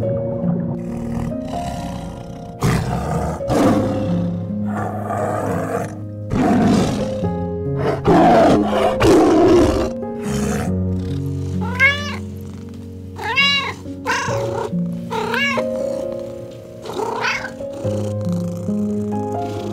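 Tiger roaring and growling several times over background music, followed by a domestic cat giving several short meows that rise and fall in pitch.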